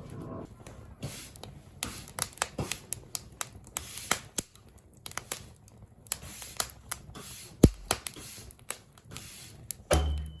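Dry wood crackling and snapping: many sharp, irregular pops, with one louder snap about seven and a half seconds in.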